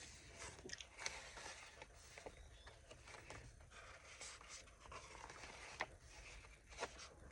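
Faint rustling and light clicks of paper sticker sheets being handled and shuffled.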